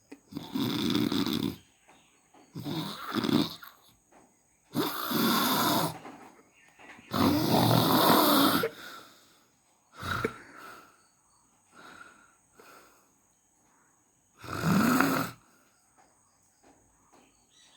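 Snoring: a series of about eight drawn-out snoring breaths at uneven intervals, roughly one every two seconds. The snores are loud and long in the first half, fainter and shorter around the middle, and loud again once near the end.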